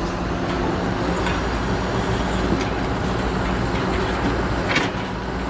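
Heavy machinery running steadily with a low rumble, and a few sharp clanks about a second, two and a half seconds and near five seconds in.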